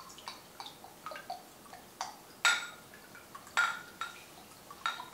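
Worcestershire sauce dripping from its upturned bottle into a glass measuring cup: a run of small drips and ticks, with two louder ringing glass clinks a little past the middle.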